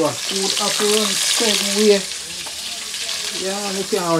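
Food sizzling in hot oil, a hiss that is loudest in the first half, with a voice talking over it.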